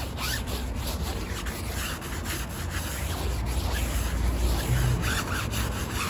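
Brush scrubbing back and forth over a shampoo-lathered tyre sidewall and wheel: a continuous scratchy rubbing made of many short, irregular strokes.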